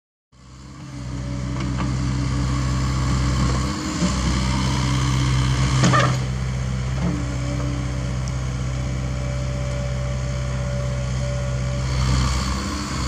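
CAT 305.5E2 mini excavator's diesel engine running steadily as it digs, with a sharp knock about six seconds in.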